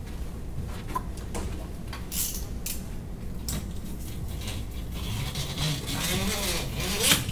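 Hardware and packaging being handled by hand while assembling an aluminium extrusion machine frame: scattered small clinks and knocks with short bursts of rustling.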